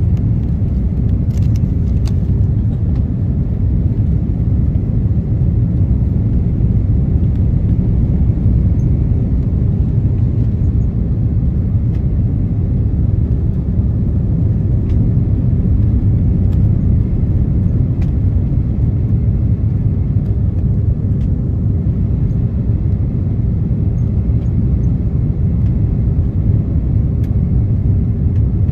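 Steady low rumble inside the cabin of an Airbus A330-300 descending on approach: engine and airflow noise, with a faint steady hum and a few light clicks.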